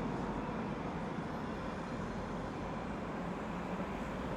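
City street ambience dominated by a steady wash of road traffic noise, without sharp events.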